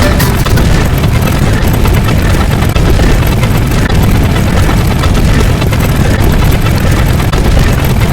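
Loud, dense, steady rumbling noise, heaviest in the bass, from many sound effects layered into one continuous wall of sound.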